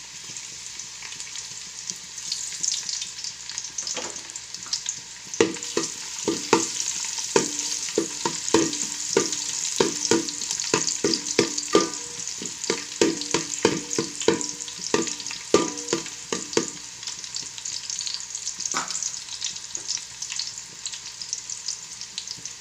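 Chopped garlic and spring onion whites sizzling in hot oil in a pan, stirred with a utensil that knocks against the pan with short ringing taps, about one or two a second, from about five seconds in until about two-thirds of the way through.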